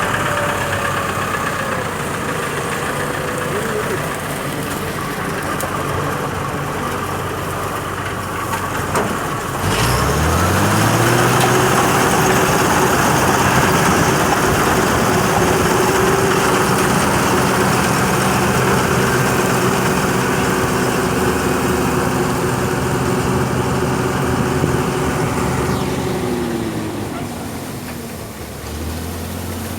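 John Deere 955 combine harvester's diesel engine running, revving up from a low speed about a third of the way in, holding at high speed, then dropping back to a lower speed near the end.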